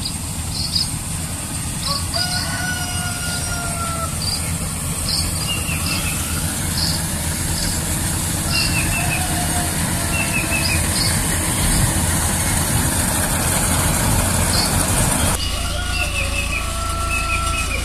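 Rice combine harvester's engine running with a steady low drone, with many birds chirping over the field in short repeated calls and a few longer whistles. About three-quarters of the way in the engine is suddenly heard close by, running steadily.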